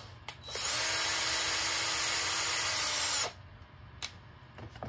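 Cordless drill running at a steady speed for about three seconds, its bit boring out a hole in a 3D-printed plastic part to widen it, then stopping suddenly.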